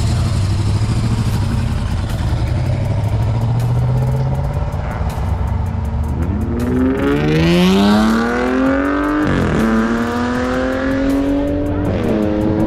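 Car engine running at a steady low drone, then accelerating hard from about six seconds in. Its pitch climbs, drops at a gear shift just past nine seconds, climbs again and drops at a second shift near the end.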